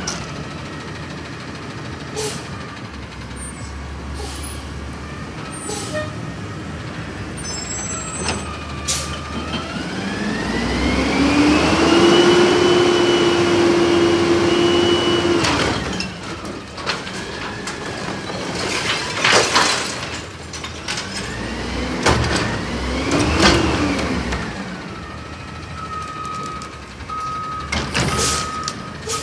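Front-loader garbage truck, a Peterbilt 320 with an Amrep loader, revving its engine to drive the hydraulics as the forks lift a dumpster up over the cab. The revs climb, hold high for a few seconds, then drop, and two shorter rev surges and a few loud sharp bangs and hisses follow as the bin is emptied and lowered. An interrupted beeping starts near the end.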